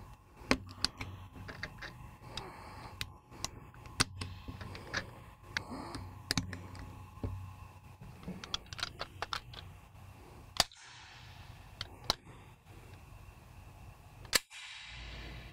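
Cartridges snapping one by one into a Beretta PX4 Storm Compact pistol's magazine, a run of sharp, irregular clicks, followed by a few clacks as the pistol is handled.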